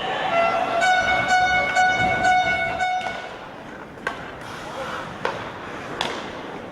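Ice hockey arena goal horn sounding for about three seconds as one steady multi-tone blast, then stopping. It is followed by a few sharp knocks of puck or sticks on the ice and boards.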